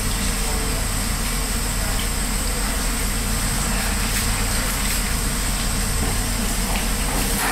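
Steady mechanical hiss and low hum, with a thin high whine over it, holding without change.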